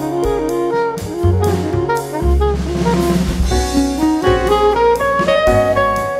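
Instrumental background music with a steady beat: a melody over bass and drums.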